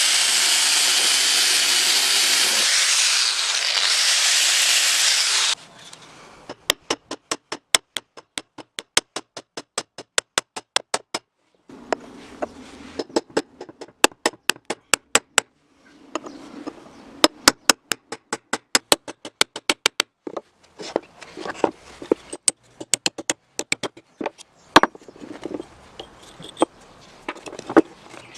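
Workshop tool sounds: a loud steady hiss that cuts off after about five seconds, then a long run of sharp, rapid clicks about six a second, with stretches of scraping.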